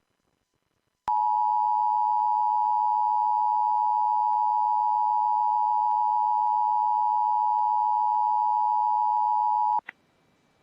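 Emergency Alert System attention signal: a steady, unchanging alarm tone just under 1 kHz. It starts about a second in, holds for nearly nine seconds and cuts off abruptly, marking the start of a warning message.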